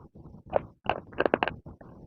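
Close-up chewing of crunchy baked clay: irregular sharp crunches, with a quick cluster of several crunches just past the middle.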